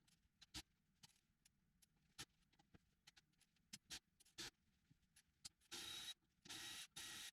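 Scattered light clicks and taps of hand tools on a motorcycle wheel, then three short bursts of rapid ratchet-wrench clicking starting a little under six seconds in, as the brake disc bolts are worked loose.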